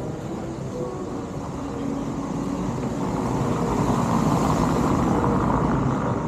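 A car driving past close by on a brick-paved street. The tyre and engine noise swells to its loudest about four seconds in, then fades.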